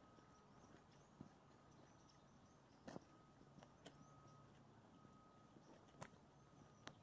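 Near silence: faint steady hiss and a faint steady tone, with a few soft clicks.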